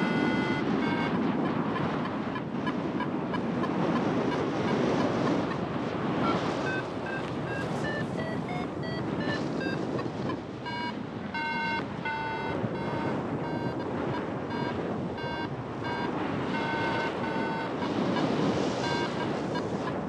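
Wind rushing steadily over the microphone. Over it come runs of short electronic beeps that jump up and down in pitch, with a longer steady tone right at the start.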